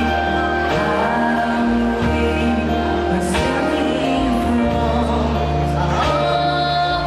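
Live music from a small band: a singer with double bass, guitar, violin and keyboard, the bass changing notes every second or two.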